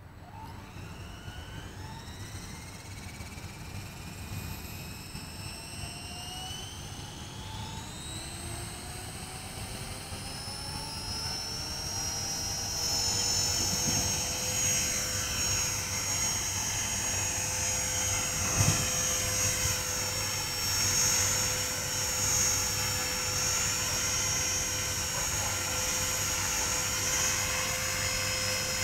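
Walkera Creata 400 RC helicopter spooling up: its motor and rotor whine rises steadily in pitch and loudness over the first ten seconds or so, then holds at flight speed as the helicopter lifts off the grass and hovers.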